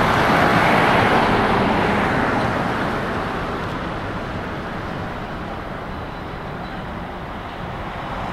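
Heavy truck carrying a railway car drives past and away: engine and tyre noise, loudest at the start and slowly fading as it goes down the road. The noise rises a little again near the end.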